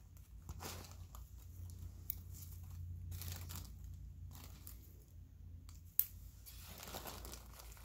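Irregular crinkly rustling from gloved hands and the patient's drape being handled during minor surgery, with one sharp click about six seconds in. A low steady hum runs underneath.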